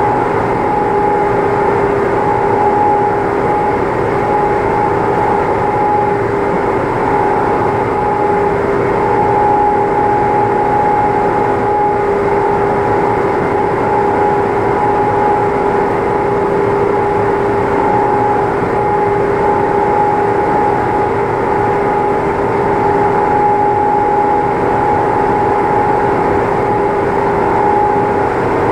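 Steady machine drone with a constant hum, unchanging in level and pitch throughout.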